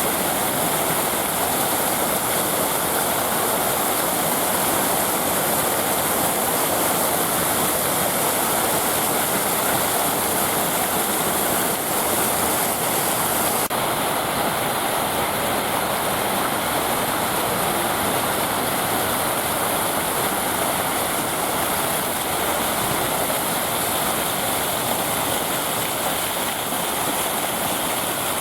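Water fountain splashing steadily, an even rush of falling water that keeps up without a break; its upper hiss changes slightly about halfway through.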